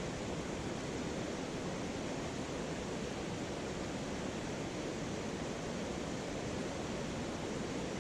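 Mountain stream water rushing over rocks, a steady even rush with no change in level.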